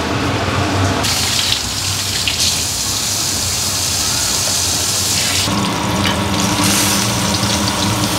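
Stuffed pomfret coated in rice flour and semolina shallow-frying in hot oil on a flat pan, a steady sizzle. The sizzle grows louder and brighter about a second in and eases back about five and a half seconds in.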